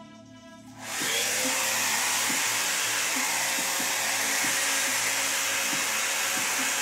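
Hair dryer switched on about a second in and running steadily at an even level, blowing across wet acrylic paint.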